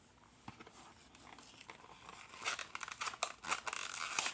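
Plastic packaging crinkling and crackling as it is handled and opened, starting about two and a half seconds in and growing busier towards the end.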